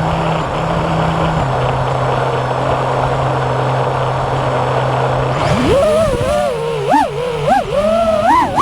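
FPV quadcopter in flight: a steady rushing noise with a low motor hum. From about five and a half seconds in, the motor whine rises and falls quickly in pitch as the throttle is worked.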